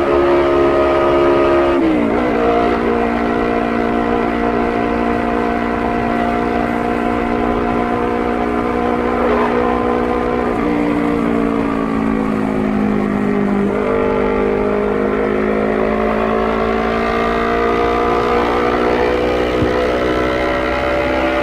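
2017 Honda CBR250RR's parallel-twin engine running through a Proliner TR-1 Short full-system exhaust at steady road speed, loud. Its note drops sharply in pitch about two seconds in and again near fourteen seconds, and climbs slowly in between.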